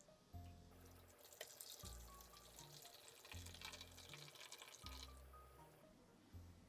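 Hot water poured from a kettle spout into a metal baking tray, splashing steadily for about five seconds, to make a water bath around the cake pan. Soft background music with low notes plays underneath.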